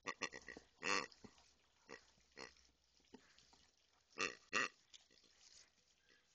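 Grey rubber pig dog toy giving short grunting oinks as it is squeezed, about six in all. The loudest is about a second in, and there is a quick pair about four seconds in.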